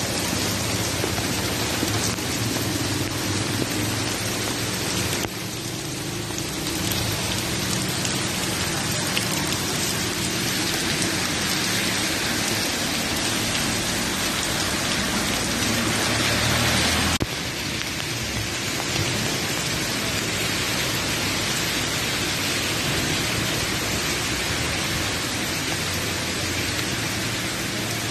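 Hail mixed with rain falling on a street, a steady dense hiss of pellets striking pavement and parked cars. The sound shifts abruptly in level twice, about five seconds in and again around seventeen seconds.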